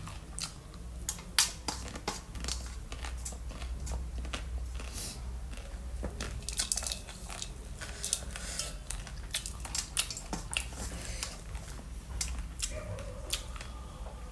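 A person chewing and biting crunchy food close to the microphone, with irregular crisp crunches throughout.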